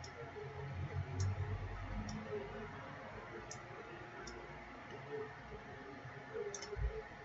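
A computer mouse clicking about six times at uneven intervals over a faint steady hum, with a low thump near the end.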